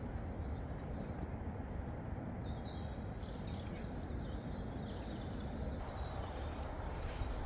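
Outdoor ambience: a steady low rumble with a few faint bird chirps about two to three seconds in.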